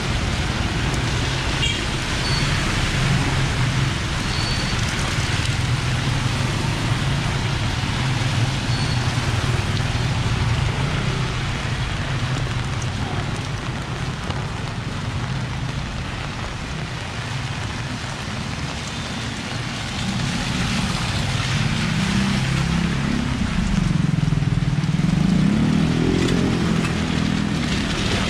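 Road traffic in the rain: a steady hiss of rain over the low drone of passing vehicle engines. Near the end, one engine's note rises and falls over several seconds as it goes by.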